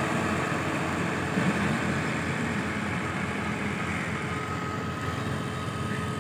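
NH Dabung 85 tractor's diesel engine running steadily, easing off slightly toward the end.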